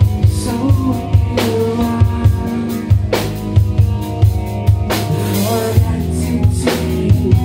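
Live rock band playing loud: drum kit with a steady kick-and-snare beat and a crash cymbal hit about every two seconds, under electric bass and sustained electric guitar notes.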